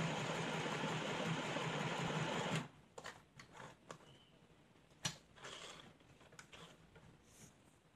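CMD 12-stitch mini household sewing machine running steadily as it stitches fabric, then stopping suddenly about two and a half seconds in. After that come small clicks and rustles of the cloth being handled and pulled away from the needle, with one sharp click about five seconds in.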